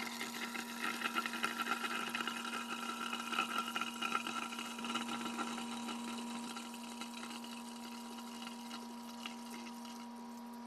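Honey mead must pouring in a thin stream through a funnel into a one-gallon glass jug, splashing onto the bottom as foam builds up. It is louder for the first six seconds or so, then softer, over a faint steady hum.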